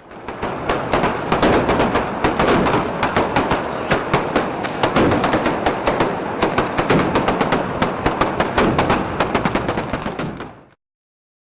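Xplode XP5301 Double Deck Red 25 mm firework cake firing its crackling shots: a dense, continuous crackle full of sharp cracks and pops. It cuts off suddenly after about ten and a half seconds.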